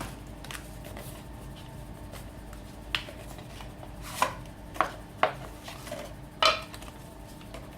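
About five sharp clicks and light knocks from a folding knife being handled, spread over a few seconds, the last one the loudest.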